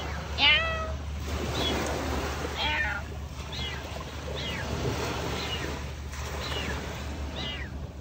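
A cat meowing over and over, about once a second: short, high calls that each fall in pitch, the loudest about half a second in.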